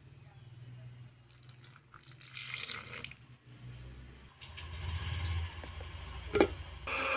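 Handling noises at a blender jar full of chillies and shallots, with one sharp knock near the end; just before the end an electric blender starts, running steadily as it grinds the spice paste.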